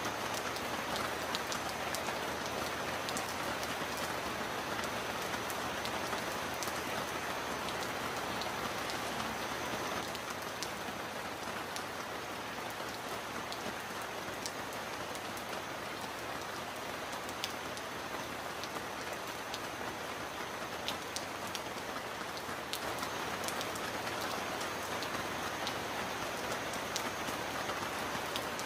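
Steady heavy rain falling in an even hiss, with scattered close drops ticking sharply.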